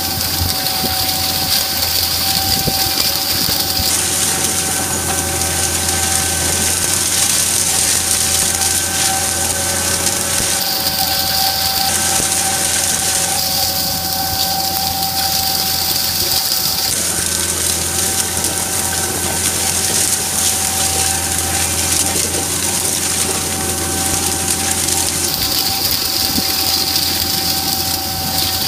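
Tractor and NDF disc seeder running steadily while seeding, with a steady whine over the machinery noise.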